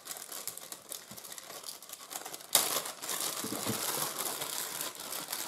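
Clear plastic bag crinkling and rustling as hands open it and work the power cables out, with a sudden louder rustle about two and a half seconds in.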